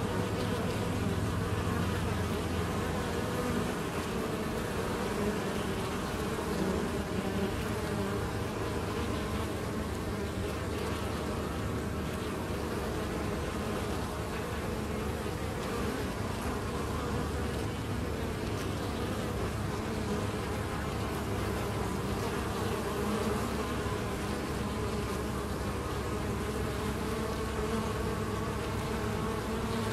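Honey bees buzzing at a hive entrance, many flying in and out at once, a steady, dense hum of wings. This is heavy foraging traffic of returning pollen collectors.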